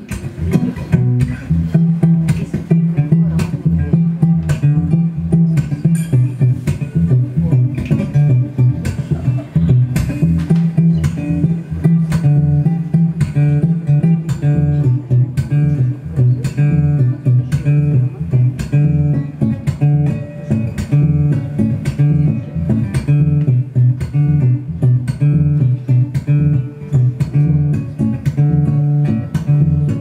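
Solo acoustic guitar playing an instrumental passage: plucked notes over a steady low bass line.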